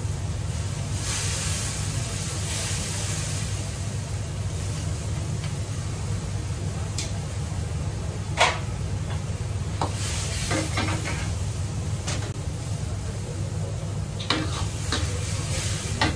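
Wok range running with a steady low hum. Vegetables are tipped into simmering liquid in a wok with a brief sizzle about a second in. A steel ladle then stirs and knocks against the wok several times in the second half, the sharpest knock just past halfway.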